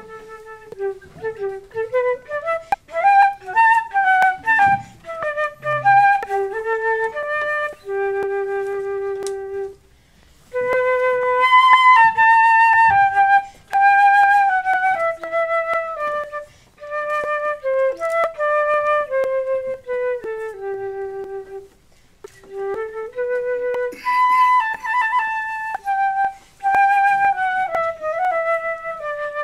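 Solo concert flute playing a melody in three phrases of stepping and held notes, with two short pauses between phrases.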